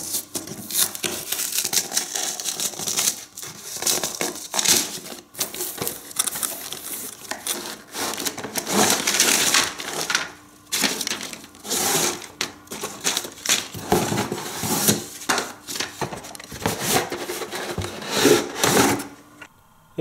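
A cardboard toy box being opened and unpacked: cardboard scraping and flexing, plastic-bagged plastic track pieces crinkling and clattering as they are pulled out, and a paper instruction sheet rustling. The handling noise is continuous with many sharp clicks and stops near the end.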